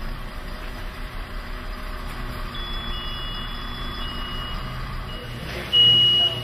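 Garbage truck's reversing alarm beeping about once a second over its running diesel engine, the beeps becoming much louder near the end.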